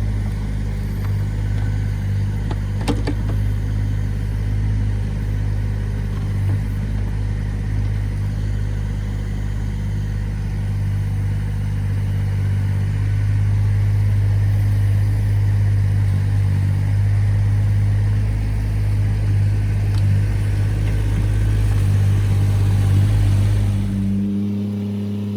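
Small digger's engine running steadily as it scoops out and spreads earth, with a few clanks about three seconds in. The engine note changes about a second before the end.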